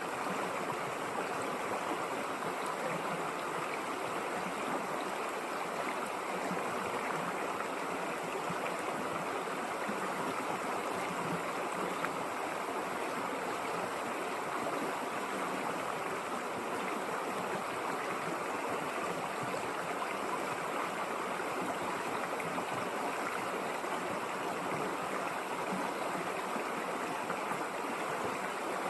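River water flowing, a steady even rush with no breaks or changes.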